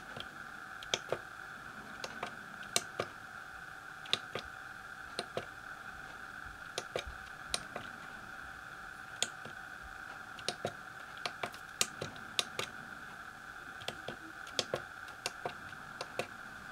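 Keys of an Elektronika MK-161 programmable calculator's keypad pressed one at a time, each keystroke a sharp click at an uneven typing pace, some in quick pairs, over a steady high background hum.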